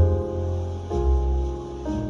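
Background music: slow sustained chords over a deep bass, changing about once a second.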